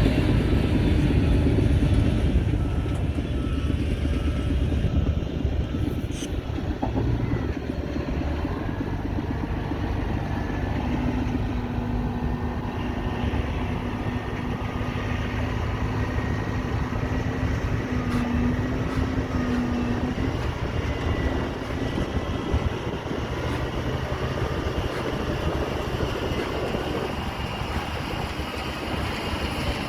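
Radio-controlled dump trucks and bulldozer running: a continuous mix of motor and gear-drive noise with a steady whine held through the middle stretch, loudest in the first couple of seconds.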